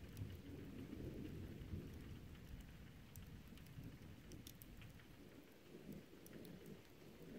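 Faint rain falling, with scattered drip ticks over a steady low rumble.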